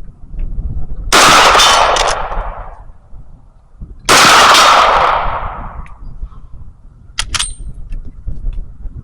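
Two gunshots from a firearm about three seconds apart, each a loud blast that rolls away over a second or more. Two short metallic clinks follow about seven seconds in, the second with a brief high ring.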